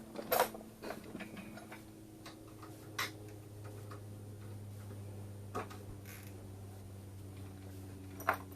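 A handful of sharp knocks and clicks, the loudest about half a second in and one near the end, over a steady low hum.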